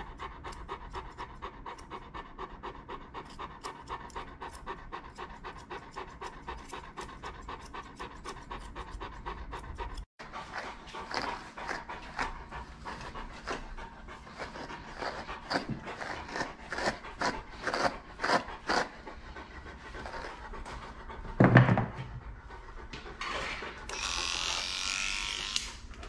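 Large Newfoundland dog panting, about four quick pants a second. About ten seconds in the sound cuts out briefly, and then the panting goes on less regularly, with a loud thump a little after twenty seconds and a brief hiss near the end.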